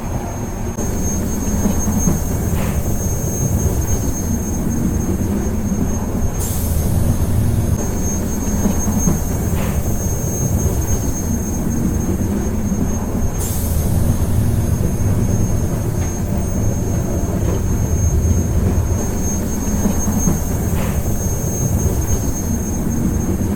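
Train in motion, heard as a steady low rumble of wheels and carriage with a thin, steady high whine over it. Brief hissing swells come twice, about a quarter of the way in and just past halfway.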